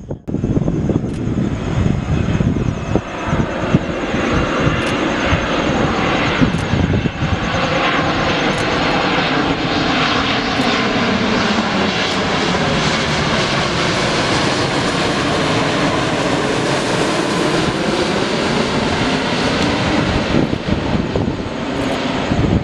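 Jet airliner passing low overhead: a loud, steady engine roar and hiss lasting the whole time, with a slowly sweeping tone as the aircraft goes by.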